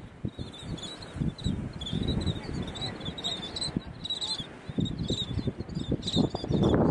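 Shorebirds calling: short, high chirping calls repeated every fraction of a second, over gusty wind buffeting the phone's microphone.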